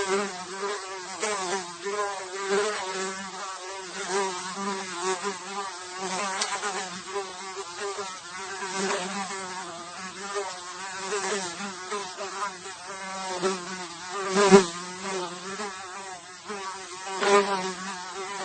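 A single fly buzzing in flight, its wing-beat hum wavering in pitch and swelling louder as it passes close, most loudly about fourteen seconds in.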